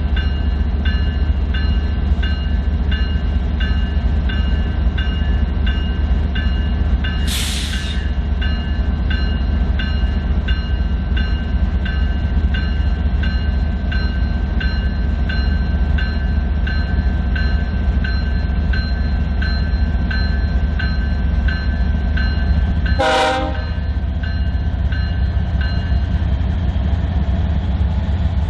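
Train running with a steady deep rumble, a bell dinging about one and a half times a second until near the end. Two short sharp hisses, about a quarter of the way in and near the end.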